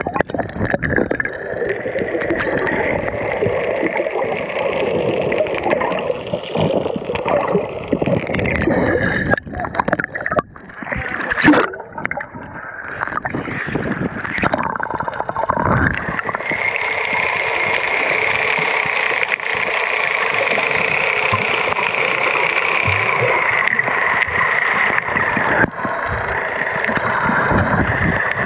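Boat motor heard underwater: a steady drone with a whine that wavers slightly in pitch. Splashing and water gurgle break it up for a few seconds in the middle, when the camera comes up through the surface, before the drone returns.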